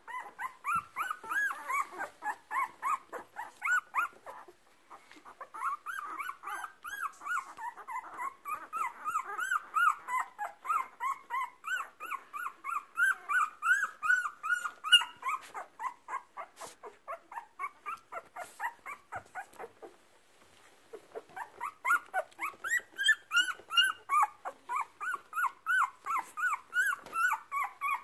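Two-week-old Brittany puppies whimpering and squeaking in a rapid run of short high-pitched cries, about three or four a second. The cries break off briefly twice, with the longer lull about two-thirds of the way through.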